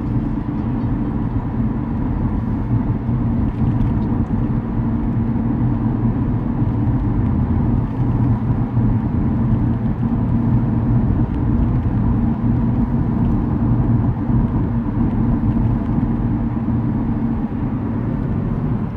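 Steady rumble and low drone of a moving car, heard from inside the cabin.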